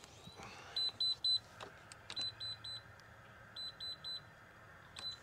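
EGO 52-inch battery riding mower's warning beeper sounding as the mower is being switched off, its short high beeps coming in quick groups of three or four, one group every second and a half or so.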